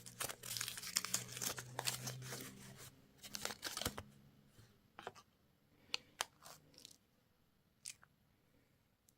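A candy wrapper being torn open and crinkled for about four seconds, followed by a few light clicks and taps.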